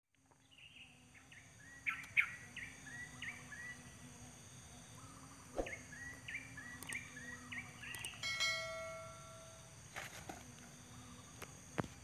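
Yellow-vented bulbul nestlings giving short, high begging chirps, about three a second in two runs, while waiting to be fed. About eight seconds in comes a brief, even-pitched tone, and there are a few sharp clicks.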